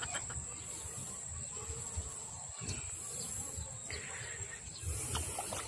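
Outdoor field ambience: wind rumbling on the phone's microphone, under a thin steady high whine and a few short swells of high hiss.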